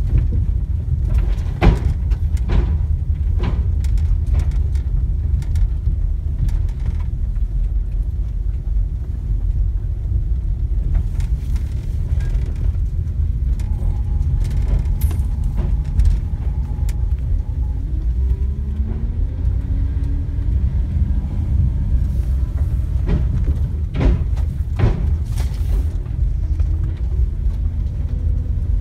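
Steady low rumble of a vehicle driving slowly, heard from inside the cab, with a few sharp knocks about two seconds in and a cluster of them a few seconds before the end.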